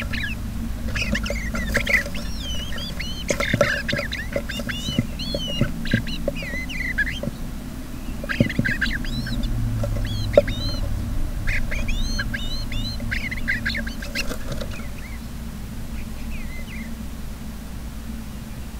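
Bluebirds calling with short, warbled chirps, in scattered bursts that thin out and stop a couple of seconds before the end. Underneath is a steady low hum and a few sharp clicks.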